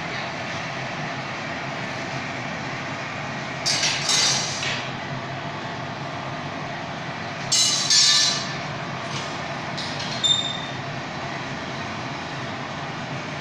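Steady roar of a gas-fired glass-reheating furnace (glory hole). It is broken by short, bright clattering bursts, the loudest about four and eight seconds in, and a shorter clink with a brief ring just after ten seconds.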